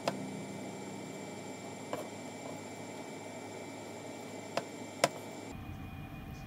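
Kitchen knife slicing mushrooms on a wooden cutting board: four sharp knocks of the blade on the board, spread out, over a steady hum. About five and a half seconds in, a low rumble comes in.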